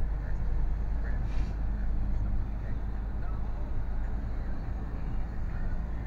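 Lorry's diesel engine and road noise heard from inside the cab while driving, a steady low drone.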